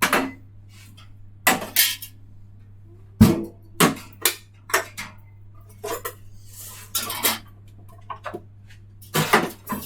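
Dishes and cutlery clattering: about a dozen irregular knocks and clinks, over a steady low hum.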